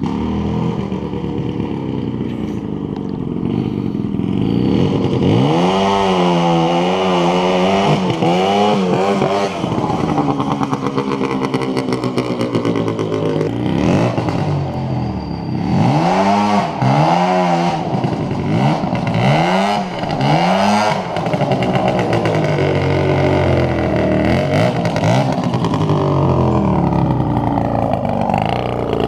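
440cc two-stroke snowmobile engine on a go-kart, revving up and falling back again and again as the kart is driven hard through turns, its pitch rising and dropping several times.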